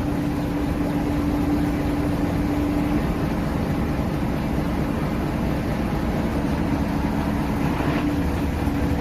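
Diesel engine of heavy machinery running steadily, a continuous low rumble with a steady hum.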